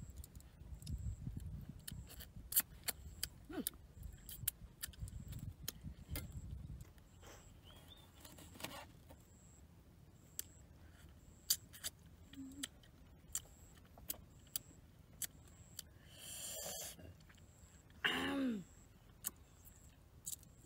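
Scattered light clicks and taps of hands handling ingredients over a bowl and wooden cutting board, with wind rumbling on the microphone for the first several seconds. Near the end a brief sliding squeal is the loudest sound.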